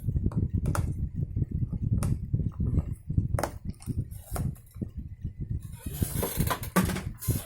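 Hands working on a laser toner cartridge, handling its plastic parts: a low rumble of handling with irregular clicks and knocks, and a scraping rustle about six seconds in.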